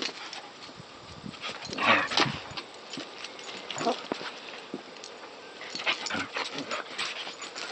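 Two Border collies, an adult and a puppy, play-fighting: short dog vocal noises, the loudest about two seconds in, among quick scuffling taps of paws and claws on concrete.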